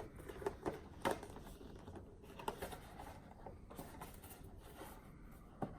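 Quiet handling noises from an opened product box and its contents: faint rustling with a few soft knocks, about a second in, two and a half seconds in and near the end.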